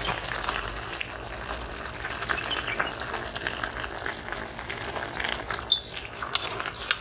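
A steady rushing hiss with fine crackles, and a metal ladle striking the aluminium biryani pot sharply twice near the end as it goes into the rice.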